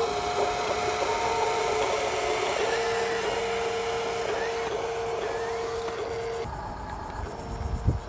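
An RC dump truck's electric bed-lift motor whining steadily as the bed tips up and soil slides off it. The whine stops about six and a half seconds in, and a few low thumps follow near the end.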